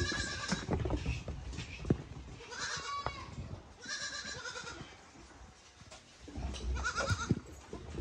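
Young goat kids bleating about four times in high calls, the last one wavering. A few sharp knocks come between the calls, the loudest about two seconds in.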